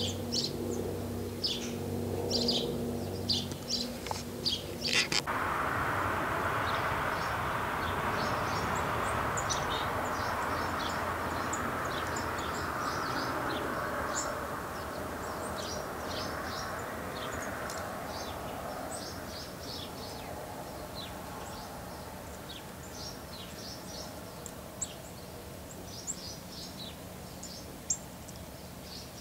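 Chickadees calling with many short, high chirps throughout. Under them, a steady low hum for the first few seconds gives way to a broad rushing noise that swells about five seconds in and fades away over the next fifteen seconds.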